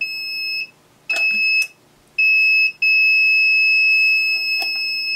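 Digitus DN-170024-NZ UPS alarm buzzer sounding a high steady tone: short beeps about a second apart, then one unbroken tone from about three seconds in, with a couple of faint clicks. It is the low-battery alarm, the battery reading 3%, from batteries the owner reckons have probably failed.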